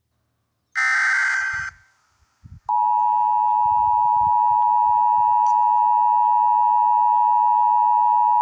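Emergency Alert System audio: a short buzzy data-header burst, then about two seconds in the harsh steady two-tone attention signal starts and holds without change.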